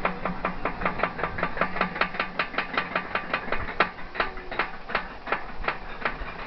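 Steel roller coaster train climbing the lift hill, its anti-rollback ratchet clicking rapidly and evenly at about six clicks a second; in the second half the clicks slow to two or three a second as the train nears the crest.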